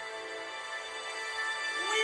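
Background music: soft held synth-like tones, swelling louder near the end.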